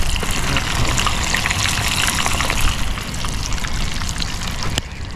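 Water trickling and splashing, with many small crackles over a steady low rumble.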